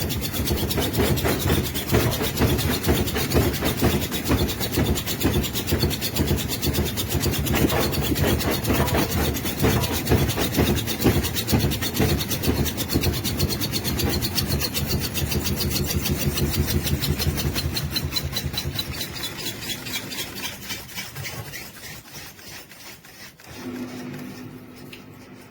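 Cecotec Bolero DressCode 10800 front-loading washing machine with its drum spinning, a fast rhythmic rubbing and rasping noise that winds down and fades over the last several seconds as the spin slows.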